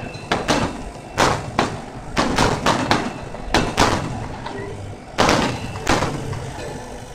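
Aerial firework shells bursting overhead, a dozen or so sharp bangs in irregular succession, some in quick runs of three or four, with the loudest a little past the middle.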